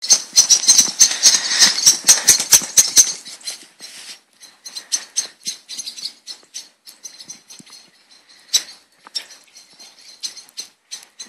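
Footsteps crunching in fresh snow: a rapid run of sharp crunches, loud for about the first three seconds, then fainter and more spaced out, with one louder crunch a little past the middle.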